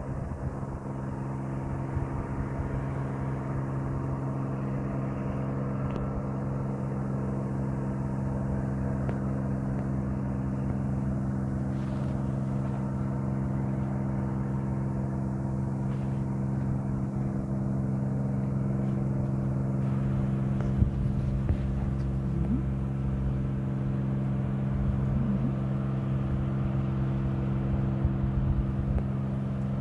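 Steady low machine hum at one constant pitch, with a low rumble underneath.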